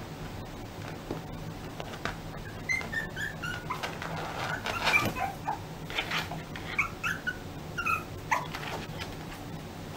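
Small puppy giving a string of short, high-pitched whines, beginning about three seconds in, along with light scratching as it paws at a cushion.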